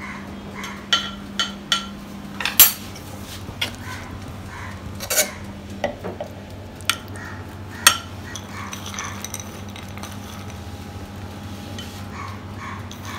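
A metal spoon and knife clinking and tapping against a glass baking dish at irregular intervals, with some scraping, as bread slices are laid in and marmalade is spread over them. A low steady hum runs underneath.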